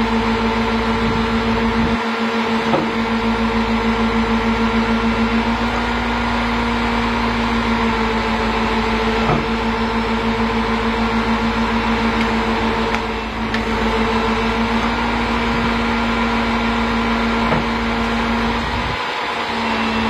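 The MAN knuckle boom truck runs its engine at steady raised revs to power the Palfinger crane's hydraulics, making a constant, even-pitched drone. A few faint clicks or knocks from the crane and grapple saw work sound over it.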